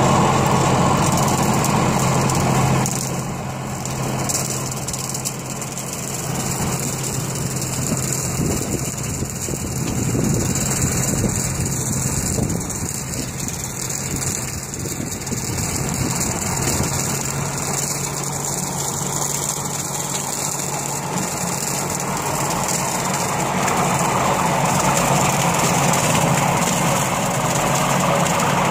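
Tractor diesel engine running steadily while it pulls a trail-type rotary cutter mowing dry grass. The sound gets quieter about three seconds in as the tractor pulls away.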